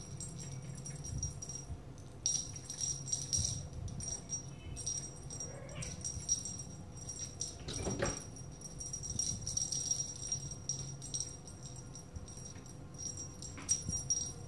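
Small jingle bell on the tip of a cat wand toy, ringing and jingling in repeated shakes as the wand is waved and a kitten bats at it.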